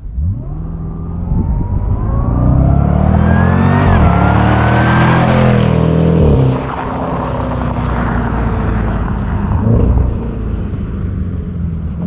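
Jaguar F-Pace SVR's supercharged V8 accelerating hard past. The engine note rises, steps down at an upshift about four seconds in and climbs again. It is loudest as the car goes by, then falls in pitch and level as it pulls away.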